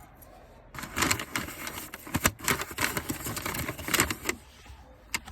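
Rapid clicking and rattling of hard parts being handled, starting about a second in and stopping shortly before the end: the original park lock relay part of a Citroen C6's automatic gearbox being fitted to its connector.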